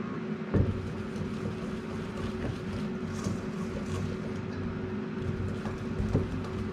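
Air fryer running with a steady fan hum, with a knock about half a second in and a lighter one near the end.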